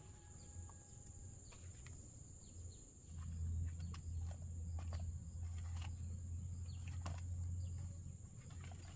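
A steady, high-pitched drone of insects, with scattered short clicks and chirps. Under it runs a low rumble that grows louder about three seconds in.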